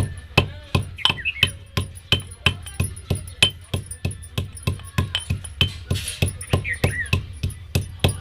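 Fresh ginger being pounded with a pestle in a mortar: steady, even knocks about three times a second.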